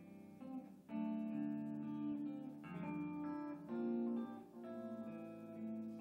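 Guitar playing an instrumental passage of a live song, plucked notes and chords changing every second or so, with no singing.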